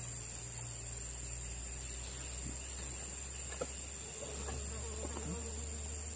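Insects trilling steadily in a high, unbroken drone, with a few faint ticks and rustles in the second half.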